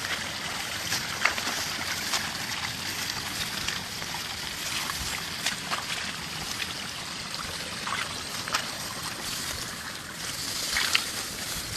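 Water trickling and splashing: a steady rush of moving water with short, sharp splashes every second or two.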